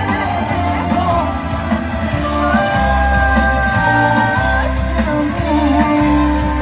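Live Greek pop band with a woman singing, holding one long note about halfway through, over bass and drums, played loud through a PA.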